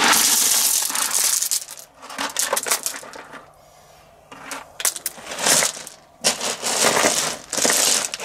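Washed pebbles poured out of a bucket onto a gravel strip, rattling and clattering in several pours with a short pause near the middle.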